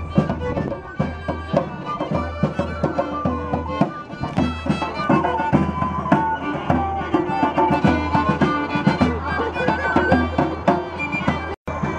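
A live traditional folk tune played on fiddle with a snare drum keeping time and a small wind instrument joining the melody. The music breaks off in a short dropout near the end.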